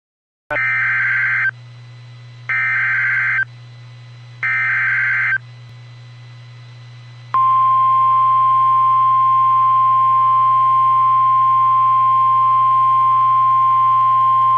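Emergency Alert System header for a severe thunderstorm warning: three one-second bursts of screechy data tones about two seconds apart. About two seconds after the last burst comes the long, steady, single-pitched alert tone, over a low steady hum.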